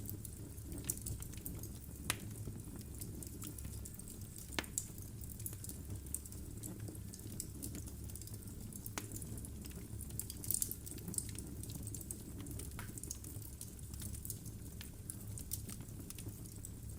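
Wood fire burning in a fireplace: logs crackling with irregular sharp pops over a steady low rumble of flame.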